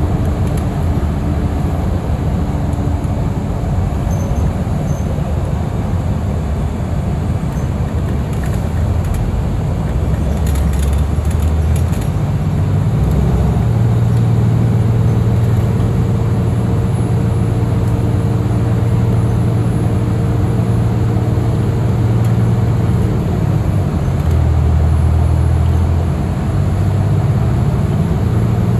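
Transit bus engine running with road and tyre noise, heard from inside the passenger cabin while the bus drives along. The engine note grows louder from about halfway through.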